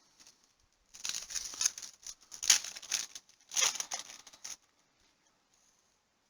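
Cellophane wrapper of a trading-card pack crinkling and tearing as it is opened by hand, in three crackly bursts of about a second each.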